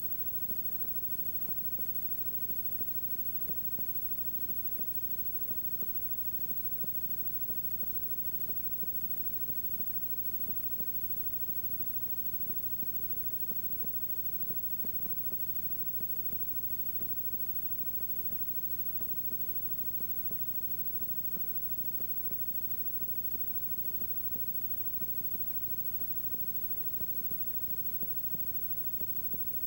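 Steady electrical hum and hiss on the recording, with frequent faint clicks; no sound from the field stands out.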